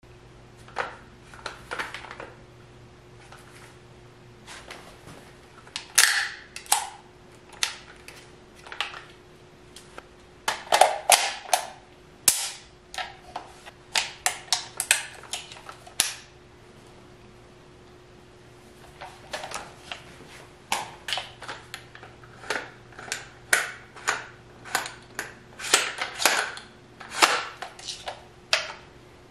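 Sharp, irregular clicks and clacks of an E&C MK18 airsoft electric rifle being handled, coming in clusters with pauses, over a faint steady hum.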